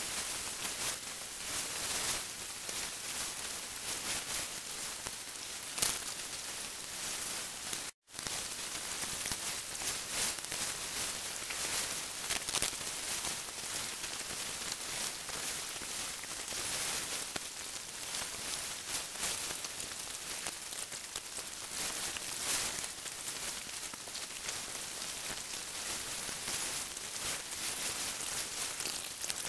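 Steady hiss with fine crackling throughout, broken by a brief dropout about eight seconds in.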